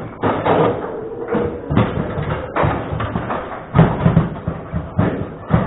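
Table football play: the ball knocking against the table's men and walls and the rods clattering, in a rapid, irregular series of sharp knocks and thuds. The loudest strikes come about four seconds in and just before the end.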